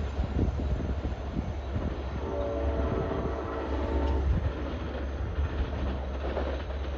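A Long Island Rail Road diesel-hauled train passes close by with a steady heavy rumble. About two seconds in, its K5LA five-chime air horn sounds one long blast of about two seconds.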